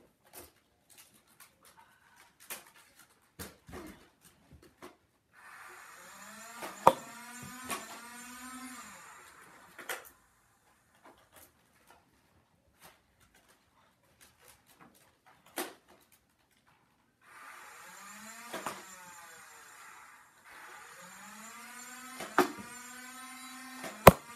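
Nerf Modulus blaster's battery-powered flywheel motors whining up to speed and winding down, three times, with sharp clicks of darts being fired and striking. The loudest click comes near the end.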